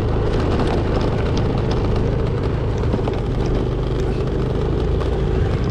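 Motor scooter engine running steadily under way, with a few light clicks over it.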